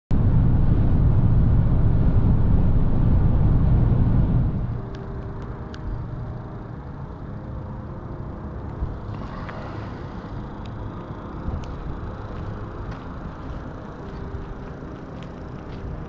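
Cabin sound of a 2019 Ford Kuga petrol SUV driving at road speed: a loud low engine and tyre rumble that drops off abruptly about four and a half seconds in. What follows is a much quieter steady hum with a few sharp ticks.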